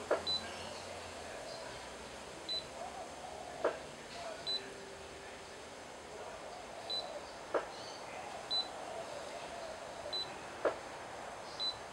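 Short high electronic beeps every second or two, with a sharp click every three to four seconds and a faint hum underneath. The sounds come from the radio-control gear of a scale Land Rover Defender 110 RC truck, its transmitter held in hand with the sound-and-light unit fitted.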